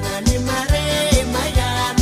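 Papua New Guinean pop song: a steady kick drum a little over twice a second under a bass line and sustained chords.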